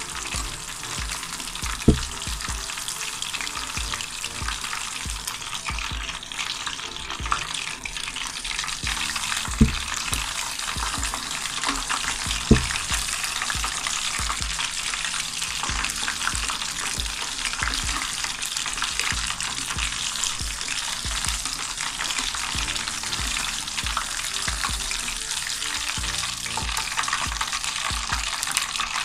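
Battered fish pieces sizzling steadily in hot oil in a shallow pan, a dense crackling hiss. Metal tongs knock sharply against the pan three times, about two, ten and twelve seconds in.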